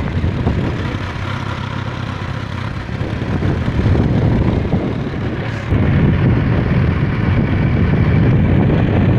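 Motorcycle running on the move, with wind rushing over the microphone; the rumble gets louder a little before six seconds in.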